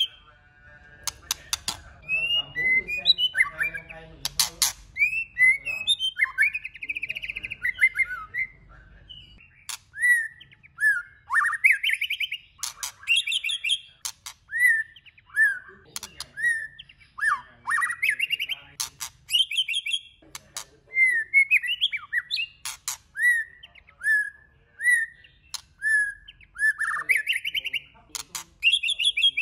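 White-rumped shama singing a varied song of short whistled phrases that slide up and down, mixed with frequent sharp clicking notes, some in quick runs.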